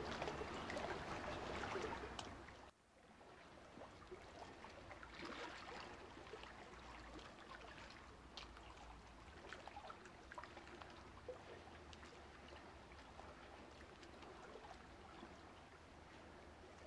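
Faint, steady water-like noise with scattered small ticks. A louder stretch of it cuts off suddenly about three seconds in.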